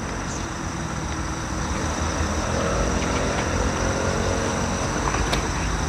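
A steady low engine drone that grows slightly louder about two seconds in.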